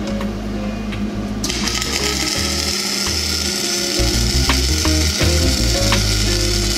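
Stick welder arc struck about a second and a half in, then a steady crackling hiss with scattered sharp pops as a bead is welded around the inside of a wheel bearing race in a truck hub. The weld is meant to shrink the race so it can be removed.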